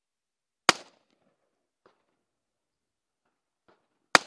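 Two single shots from an AR-style carbine, about three and a half seconds apart, each a sharp crack with a short tail.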